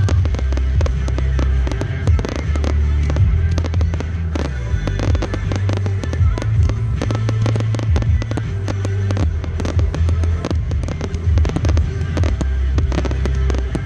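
Aerial fireworks display: shells bursting one after another, with a dense, continuous crackle of small reports.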